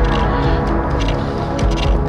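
Background music with a dark, tense tone and a steady low pulse.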